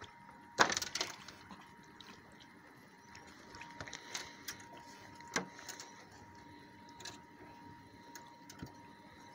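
Water splashing as a swimming moose pushes against the side of a small boat, loudest about half a second in, followed by scattered light knocks and clicks on the hull. A faint steady thin tone runs underneath.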